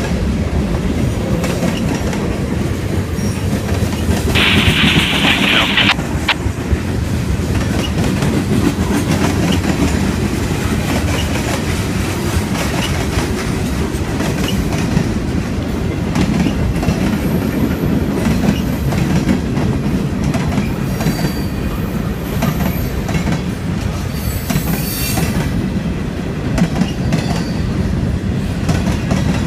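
Freight train of covered hoppers, tank cars and boxcars rolling past close by: a steady rumble with the clack of wheels over the rail joints. A brief hiss comes in about four seconds in.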